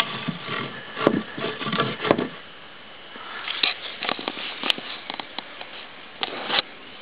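Scattered light clicks, knocks and scrapes of wood being handled: a wooden dowel being set into a hole in the top of a homemade OSB box trap.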